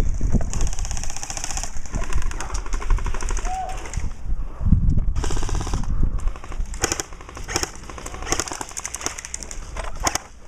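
Airsoft guns firing in rapid full-auto bursts, then in looser, scattered shots from about six seconds in.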